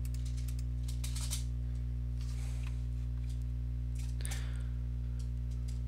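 Steady low electrical hum with even overtones from the recording setup, unchanging throughout. It carries a few faint soft rustles, about one, two and a half and four seconds in.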